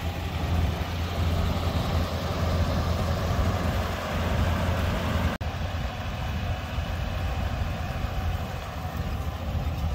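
1966 Buick Electra 225's 401 cubic-inch nailhead V8 (the Wildcat 445) idling steadily.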